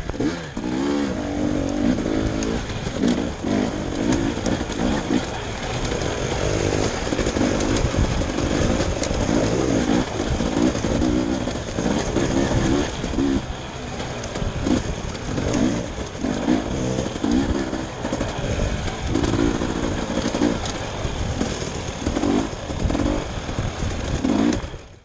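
Dirt bike engine revving up and down in short bursts every second or two as the throttle is worked over rough trail.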